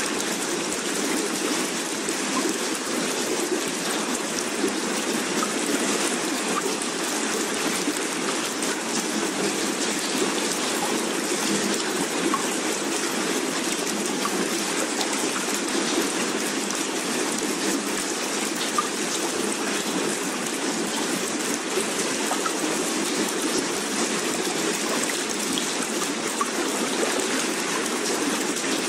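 Steady, even rain-like water ambience, a constant rushing hiss with no rise and fall.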